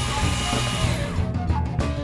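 Electric hand mixer running with a steady whine as its beaters whisk egg batter in a bowl, switched off about a second in. Background music with a beat plays throughout.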